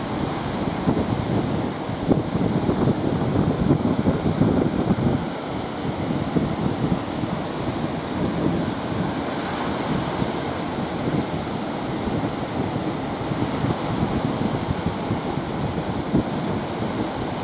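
Ocean surf breaking and washing up the beach, with wind noise on the microphone. The surge is a little louder for a few seconds near the start.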